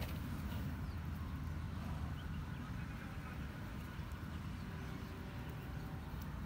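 Steady low outdoor rumble with no distinct event, only a few faint ticks.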